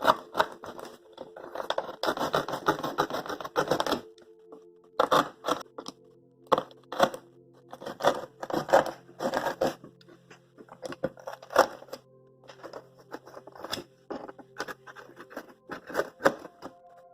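Cardboard being cut by hand: a string of short, sharp cutting strokes, with a dense run of rapid strokes from about one and a half to four seconds in.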